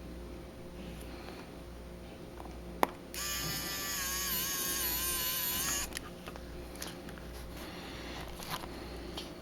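A sharp click, then a small electric precision screwdriver's motor whining steadily for about three seconds, dipping slightly in pitch midway, as it drives in a tiny phone screw.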